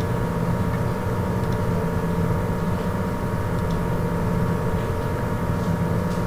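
Steady low background hum, even in level, with a few constant tones held through it.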